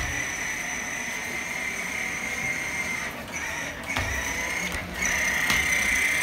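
Battery-powered children's ride-on toy motorcycle driving, its small electric motor and gearbox giving a steady high whine that cuts out briefly a few times past the middle.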